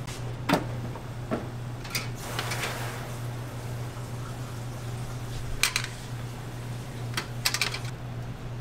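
Kitchen work clatter: short clinks and knocks of metal utensils and equipment, about six in all with a brief scrape a couple of seconds in, over a steady low hum.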